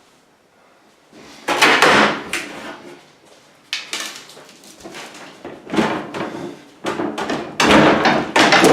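Irregular knocking, banging and scraping of wooden cabinetry being worked loose and handled during kitchen demolition. It starts about a second and a half in and grows louder toward the end.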